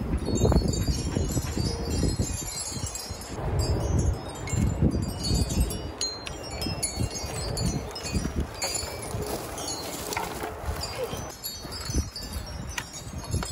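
Wind chimes ringing irregularly in gusty wind, a scatter of short high tones, over a low rumble of wind on the microphone.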